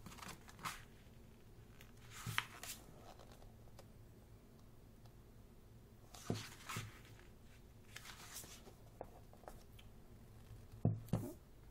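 Pages of a large photo book being turned by hand, a soft paper swish with a light thud about five times, a few seconds apart.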